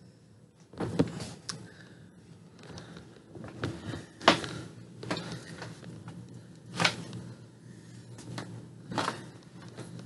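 Irregular knocks and clacks of objects being handled, about five sharp ones a couple of seconds apart with lighter taps between, over a low steady hum.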